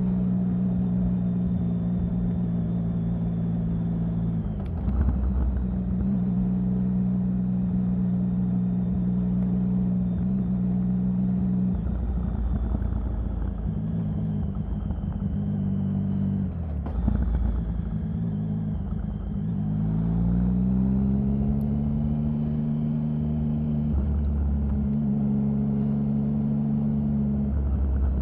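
Triumph Sprint 1050's three-cylinder engine running at a steady note, with brief breaks in the note about 5, 12 and 17 seconds in. About two-thirds through, the pitch rises smoothly as the engine picks up revs, then holds steady again, over a low rumble.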